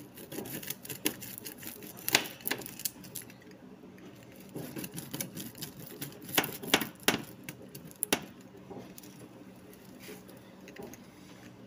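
Pizza cutter wheel rolling through the crust of a baked pepperoni pizza, scraping and clicking against the baking pan beneath. Sharp clicks come about two seconds in and again in a cluster around six to eight seconds in.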